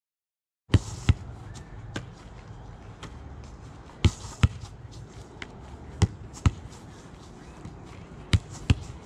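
A football being passed against a brick wall: four passes, each heard as two sharp thuds less than half a second apart, the kick and the ball striking the wall, about every two seconds after a silent first second.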